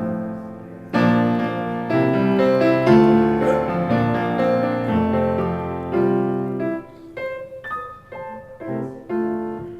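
Piano playing an instrumental passage between sung lines: full chords struck about once a second, then lighter, sparser notes in the last few seconds.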